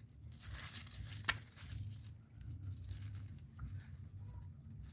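Plastic bag rustling and crinkling as a doubled bag is handled over a cut plant stalk, with a single sharp click about a second in.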